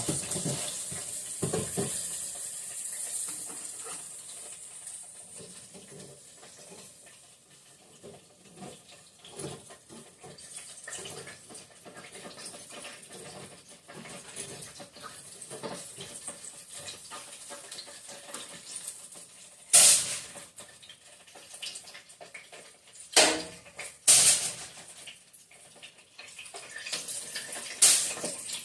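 Kitchen work sounds: a high hiss that fades away over the first few seconds, then scattered light clicks and several sharp knocks, loudest about two-thirds of the way through and near the end.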